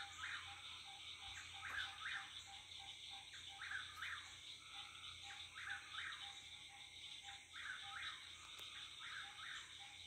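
A whip-poor-will-type nightjar sings its whistled phrase over and over, about once a second, each phrase ending in sharp rising notes. Beneath it runs a steady chorus of frogs and insects, with a low call pulsing about twice a second.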